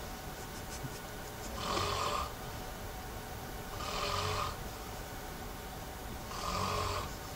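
A person snoring, three snores about two and a half seconds apart.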